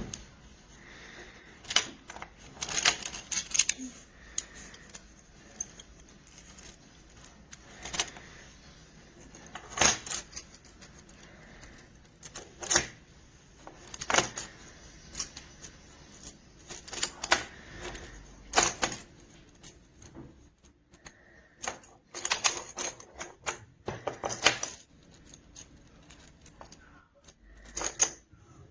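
Small plastic magnetic building blocks clicking and clacking against each other as they are handled and snapped together: sharp, irregular clicks, sometimes in quick little clusters.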